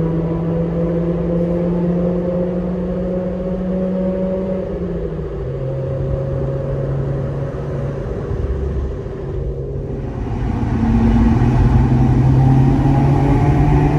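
Exhaust note of an early Mazda RX-8's twin-rotor Renesis rotary engine, breathing through a Maxim exhaust manifold, SARD catalytic converter and R-magic tuned silencer, driving through a tunnel. The steady engine note drops in pitch about five seconds in, dips briefly, then grows louder and climbs slowly in pitch from about ten seconds in as the car pulls again.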